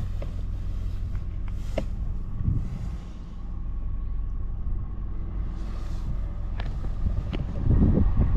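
A steady low engine hum, the even drone of a motor running at idle. Rough gusts of wind rumble on the microphone come in near the end.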